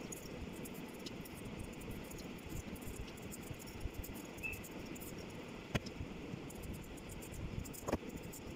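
Red potatoes being peeled with a vegetable peeler: soft scraping strokes over a steady low hiss, with two sharp clicks in the second half.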